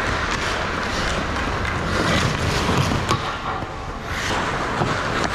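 Ice hockey play heard from a camera on the goal: a steady rush of skates on ice and rink noise, with several sharp clacks of sticks and puck.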